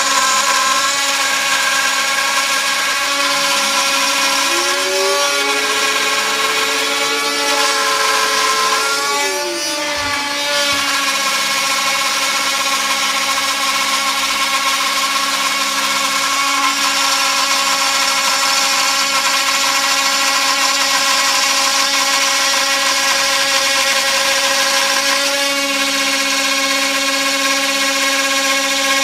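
Desktop CNC 3020 router milling wood flooring: a steady, whining motor hum with several tones and the cutting noise of the bit in wood. A lower tone rises about four seconds in, holds, and falls away around ten seconds, and the pitch shifts briefly again near the end.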